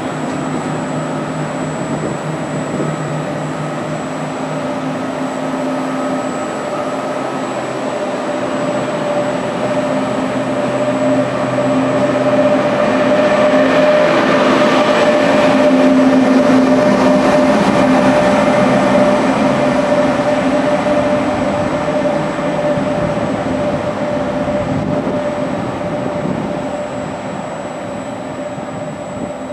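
Frecciarossa ETR 500 high-speed electric train running past along the platform: a rolling wheel-and-rail rumble with a steady electric hum. It swells to its loudest around the middle as the cars and then the end power car pass close by, and eases off toward the end.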